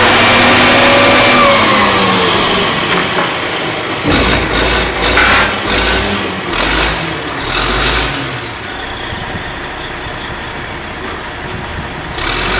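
Oil rig's engine and machinery running loudly, its pitch rising and then falling in the first couple of seconds. The noise then drops, with about five short bursts a second apart, before it comes back loud near the end.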